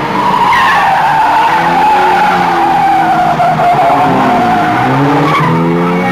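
Car tyres squealing in one long skid whose pitch sags slowly, over engines revving and changing pitch. The engines climb again near the end.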